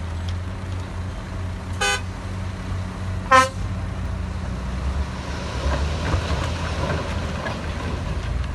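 Heavy diesel machinery running with a steady low drone, and a vehicle horn giving two short toots about a second and a half apart, the second louder. A rougher rattling noise joins in during the second half.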